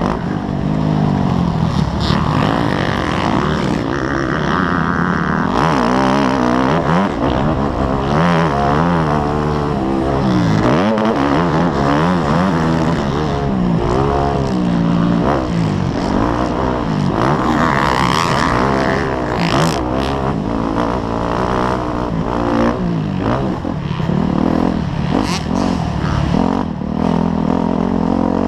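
Dirt bike engine revving up and down through the gears as it is ridden hard around a motocross track, its pitch rising and falling over and over, heard from a helmet-mounted camera.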